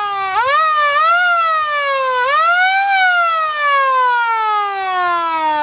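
Fire-truck siren, not yet wired to the truck, sounding really loud: its pitch jumps up in two short steps in the first second, climbs again about two seconds in, then slides slowly down.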